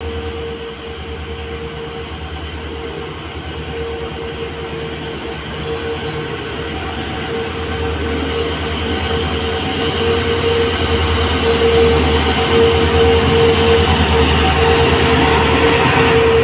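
Twin EMD WDG-4/WDG-4D diesel-electric locomotives with V16 two-stroke engines running under power at the head of a freight train. A steady high whine rides over a low, pulsing engine throb, and the sound grows steadily louder as the locomotives approach and draw level.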